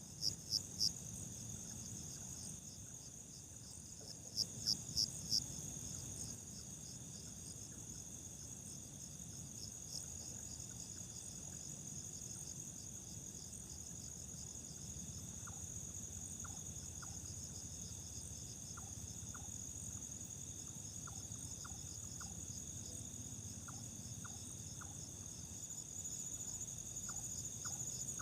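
Night insects, crickets, keeping up a steady high trill, with a quick series of three louder chirps just after the start and four more about five seconds in. Faint short ticks join from about halfway through.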